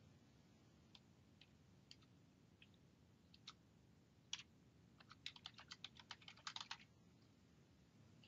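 Faint computer keyboard typing: a few scattered keystrokes, then a quick run of keystrokes from about five seconds in, lasting nearly two seconds.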